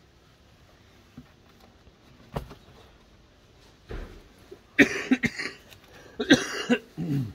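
A person coughing in two short bouts, about five seconds in and again about a second and a half later, after a couple of faint knocks.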